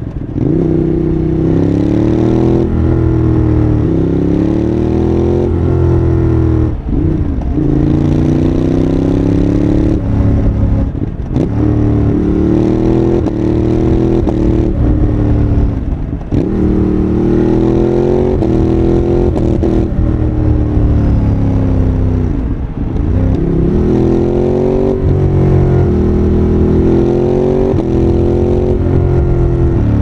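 Ducati Monster 821's Testastretta L-twin, breathing through an aftermarket QD muffler, pulling on the road. The engine note rises and falls in pitch with the throttle and drops away briefly about four times as the throttle closes.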